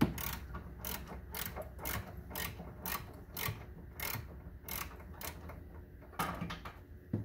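Ratchet clicking in short irregular strokes, along with sharp metal tool clicks, while the last stubborn engine-mount bolt is worked loose.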